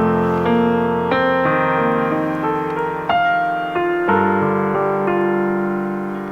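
Background piano music: sustained keyboard chords that change every second or so.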